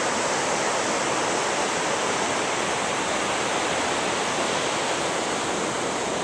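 Ocean surf breaking along a sandy beach, heard as a steady, even rush with no single wave standing out.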